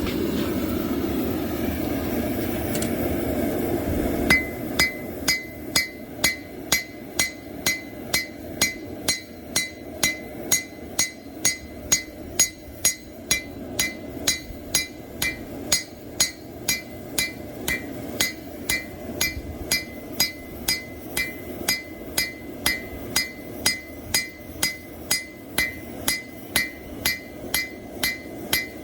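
Blacksmith's hand hammer striking hot plow-disc steel on an anvil to shape a knife blade: a steady rhythm of about two blows a second, each with a short metallic ring. A steady rushing noise fills the first four seconds before the hammering begins.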